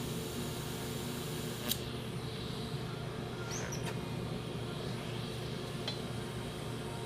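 Welding machine humming steadily, with a high hiss that cuts off after a sharp click about two seconds in, then a few light clicks.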